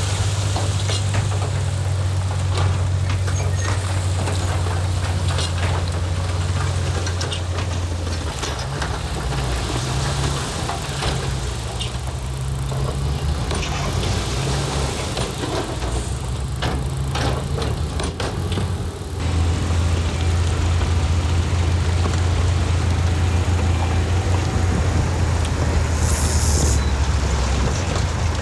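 Heavy diesel engine of earth-moving machinery running with a steady low hum. Its note shifts about 8 seconds in and steadies again about 19 seconds in, with scattered sharp clicks and knocks in between.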